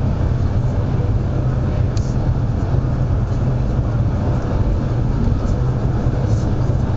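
Steady low rumble of a CRH380BL high-speed train running at speed, heard inside the passenger car.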